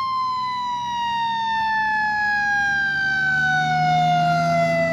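Fire-engine siren winding down: one long wailing tone that falls slowly and steadily in pitch.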